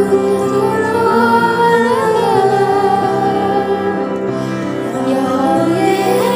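Girls' choir singing a melody together in long held notes.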